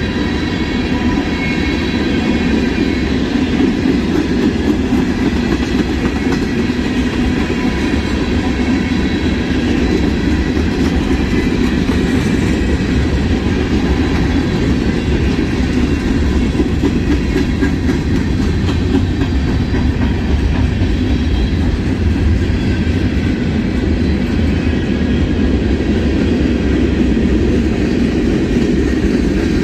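Freight train of covered hopper cars passing close by: steady, loud rolling of steel wheels on the rails.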